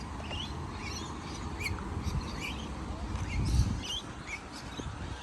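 Birds chirping repeatedly in short, high notes, over a steady low rumble that swells briefly about three and a half seconds in.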